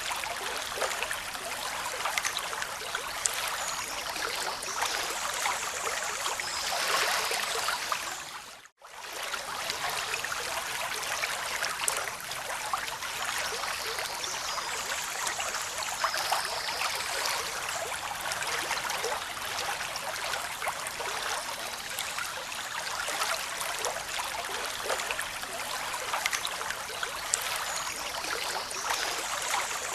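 Steady rushing, splashing water with no clear wave swells. It cuts out for a split second about a third of the way through.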